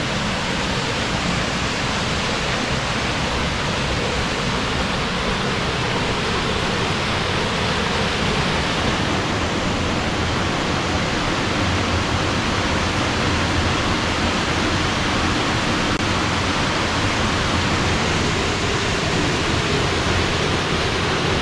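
Loud, steady rush of a waterfall on La Verkin Creek, running high with spring run-off.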